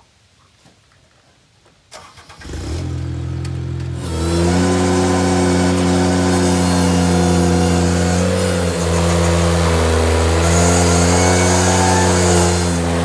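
Ventrac 4500 compact tractor's engine starting about two seconds in, running briefly at a low speed, then revving up around four seconds in and running steadily at higher speed.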